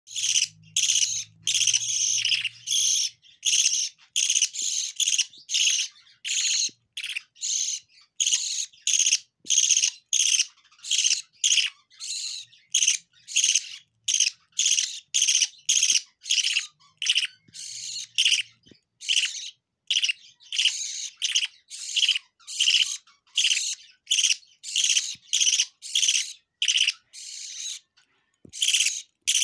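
Budgerigar chicks begging for food with a long, steady run of short rasping calls, about two a second, while being hand-fed formula from a spoon.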